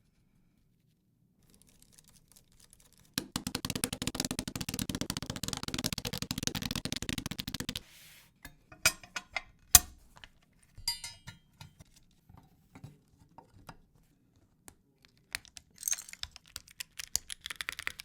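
Custom mechanical keyboard with a copper case being typed on: a few seconds of fast, continuous key clatter, then scattered single sharp clicks and clacks, and rapid typing again near the end.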